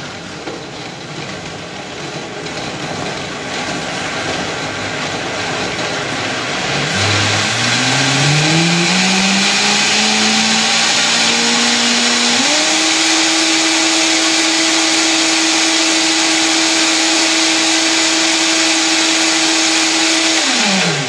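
Countertop blender running loud on a thick load of frozen strawberries, fruit and milk. The motor's pitch climbs as it speeds up, jumps higher about halfway through and holds steady, then winds down as it is switched off at the end.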